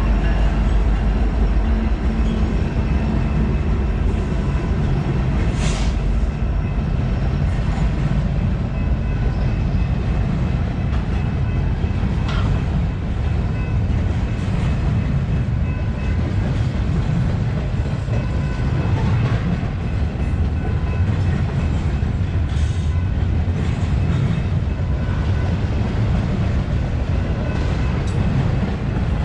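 BNSF double-stack intermodal freight train's container well cars rolling past: a steady low rumble of steel wheels on rail with a few sharp clanks. A grade-crossing bell rings throughout.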